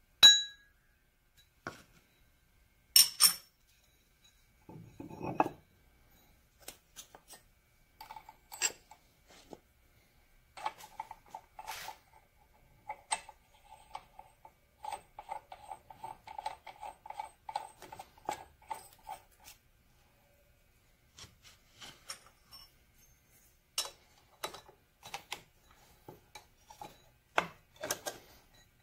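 A surface grinder wheel is tapped for the ring test: a sharp tap just after the start rings briefly with clear tones, the sign of an undamaged wheel (a thud would mean a damaged one), and a second tap follows about three seconds in. Then come metal clinks and a stretch of rapid scraping as the wheel on its hub is worked onto the grinder spindle.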